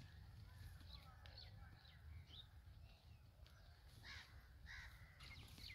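Faint crows cawing, with the two clearest calls about four and five seconds in, and small birds chirping, over a low steady rumble.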